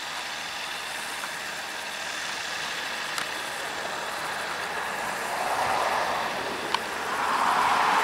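New Holland T7 tractor and McHale round baler running as they pick up a swath of cut grass, growing louder as they come closer. Two brief sharp clicks, one about three seconds in and one near seven seconds.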